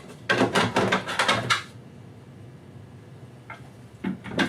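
Hard parts being handled and set down on a bench: a quick clatter of knocks for the first second and a half, then a few single knocks near the end.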